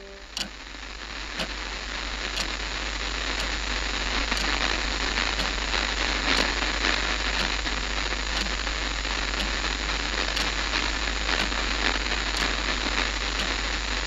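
Old television's static hiss, rising over the first few seconds and then steady, over a low hum, with a faint tick about once a second.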